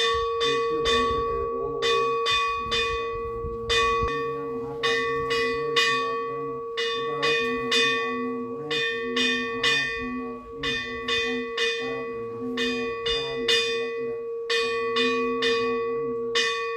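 Brass hand bell (puja ghanta) rung continuously in temple worship, about three to four strokes a second over a steady ringing tone, with a couple of brief pauses.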